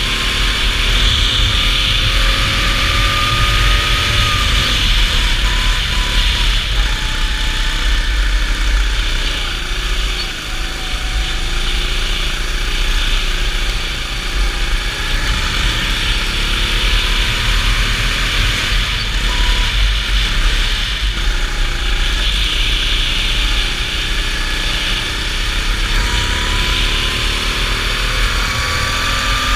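Go-kart engine heard onboard at speed, its pitch climbing as it revs up along a straight, then falling and wavering through the bends before climbing again near the end.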